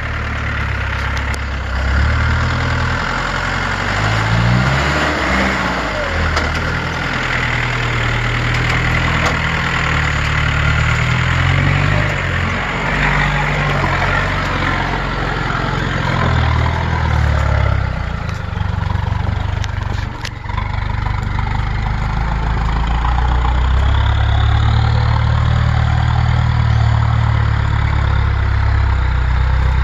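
Land Rover 110 County's V8 engine working at low revs as the 4x4 crawls over rock, its pitch rising and falling with the throttle. A few sharp knocks are heard about two-thirds of the way through.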